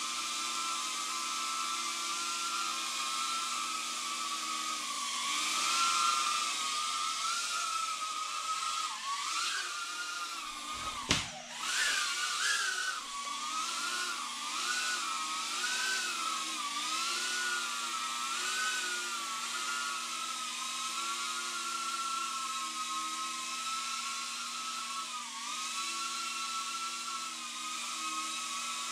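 Tiny whoop micro quadcopter's motors and ducted propellers whining, the pitch wavering up and down as the throttle changes. About a third of the way in there is one sharp knock, with the whine dipping and surging just after it.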